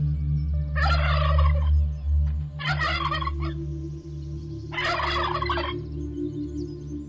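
Turkey gobbling three times, each gobble a rapid rattling call lasting about a second.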